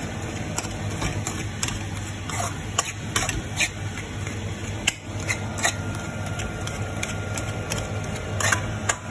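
Metal spoon scraping and clinking against a metal kadai as sautéed onions and tomatoes are stirred and mashed, in short irregular strokes over a steady low hum.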